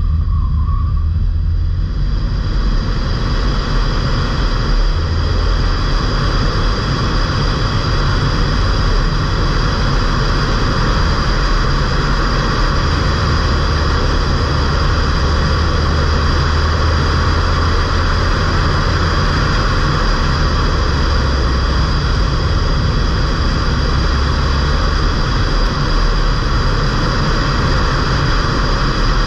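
Ford Fiesta 1.5 TDCi four-cylinder turbodiesel car driving at speed: a steady low rumble of engine and tyres under a hiss of road and wind noise that builds over the first couple of seconds.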